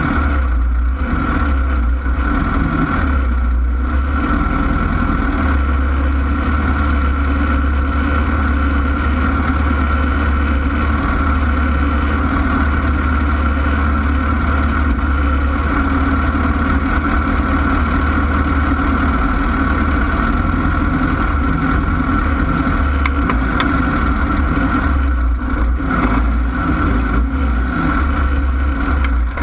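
Class 1600 off-road race car's air-cooled Volkswagen engine running steadily, a constant loud drone.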